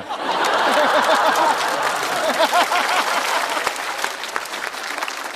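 Studio audience applauding and laughing in response to a punchline, the applause loudest in the first couple of seconds and tapering off toward the end.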